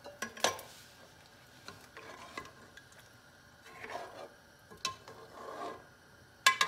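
A metal spoon stirring chicken nihari in a large metal pot, just thinned with water. Swishing liquid is broken by a few sharp clinks of the spoon against the pot, the loudest near the end.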